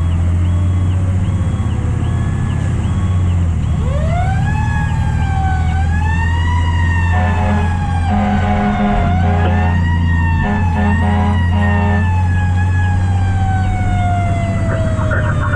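Fire truck siren winding up sharply, wavering up and down, then slowly winding down over several seconds, with a series of short horn blasts midway. A steady low diesel engine drone runs underneath.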